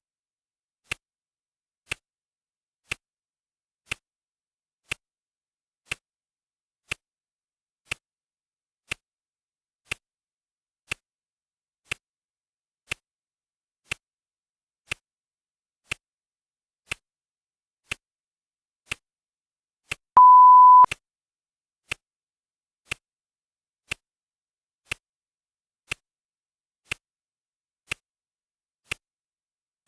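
Clock ticking sound effect, one sharp tick a second, with a single steady beep lasting under a second about two-thirds of the way through, the countdown timer's signal that a minute has passed.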